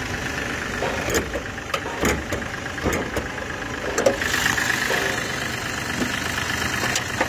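Mahindra TUV's diesel engine idling steadily, with several sharp clicks and knocks over it.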